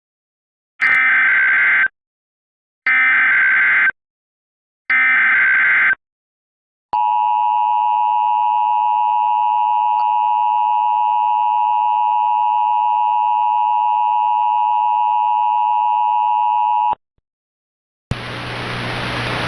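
Emergency Alert System opening: three one-second bursts of buzzy SAME header data tones about two seconds apart, then the long steady two-tone attention signal for about ten seconds, which cuts off sharply. About a second later a hiss of static begins.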